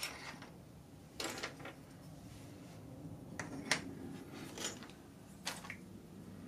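Small hard-plastic toy playset pieces clicking and clacking as they are handled and set down, about half a dozen separate sharp clicks, two of them close together a little over a second in.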